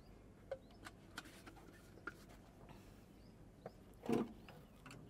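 Faint clicks and footsteps, then a short, louder sound about four seconds in as a plastic fuel sampler cup is pushed up against the underwing fuel tank drain valve of a Cessna 206H to draw a fuel sample.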